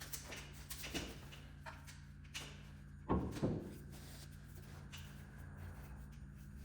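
Light clicks and knocks of parts and tools being handled, with one louder knock about three seconds in, over a steady low hum.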